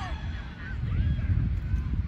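Faint shouting voices over a steady low rumble.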